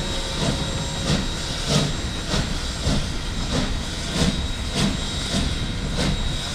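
Steam locomotive exhaust chuffing steadily under hard work, about one and a half to two beats a second over a steady hiss of steam.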